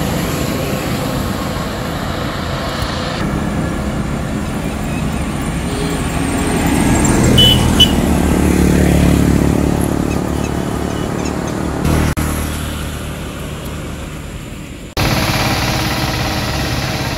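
A motorcycle passing on the road, its engine growing louder to a peak about eight seconds in and then fading away. Near the end the sound changes abruptly.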